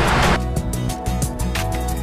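Background music: a rushing noise cuts off about a third of a second in, giving way to sustained pitched notes over a light regular beat.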